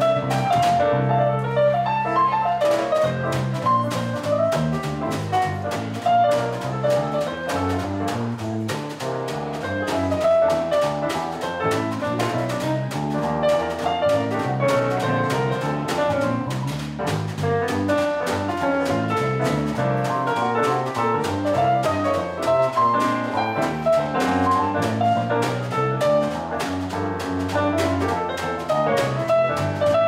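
Jazz-style music: piano with hand-drum percussion keeping a busy, steady rhythm. The drumming drops out for about two seconds near the start.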